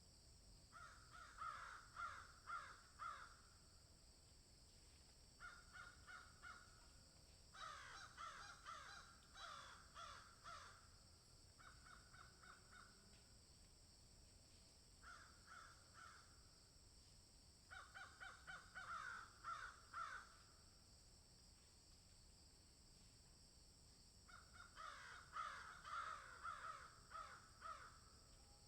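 Crows cawing faintly in bursts of several quick caws each, about seven bursts with pauses between them, over a steady high-pitched hiss.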